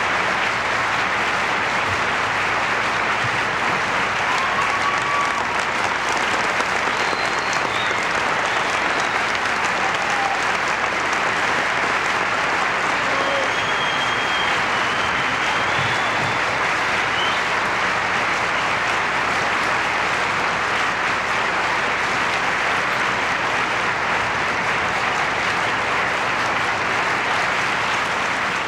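Theatre audience applauding steadily, a dense even clapping from a large crowd.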